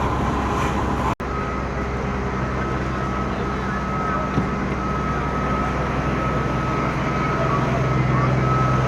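Fire engine running steadily, with a steady high whine over the engine's low drone. The sound drops out for an instant about a second in, and there is a single click a few seconds later.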